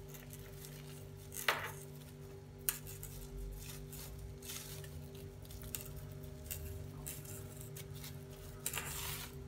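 Heat-resistant plastic film crinkling in short, irregular rustles as it is rolled around a log of minced chicken, with a longer rustle near the end, over a steady low hum.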